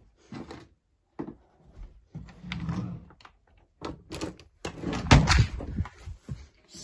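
A door being opened and shut: several irregular knocks and thuds, busiest and loudest about four to five and a half seconds in, mixed with the rustle of the phone being moved about.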